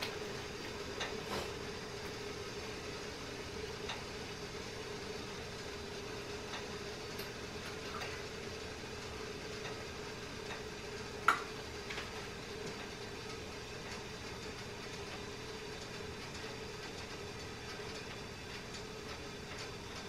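A steady hum with scattered light clicks of a utensil in a metal pot, the loudest a single sharp clink about eleven seconds in.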